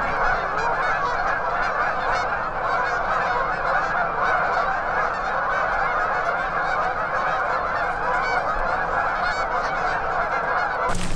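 A large roost flock of Canada geese honking: a dense, continuous chorus of many overlapping calls, steady in level throughout.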